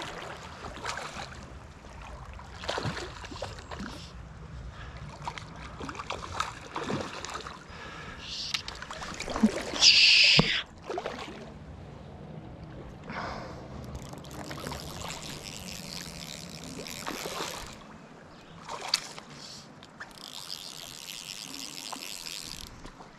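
Water splashing and trickling as a hooked smallmouth bass is fought on a fly line, with a sharp splash about ten seconds in and two stretches of hiss later on.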